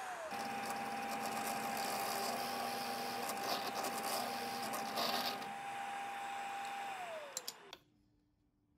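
Drill press motor running with a steady whine while the bit bores into wood, with louder cutting noise about halfway through. Near the end the motor is switched off and the whine falls in pitch as it spins down, with a few clicks.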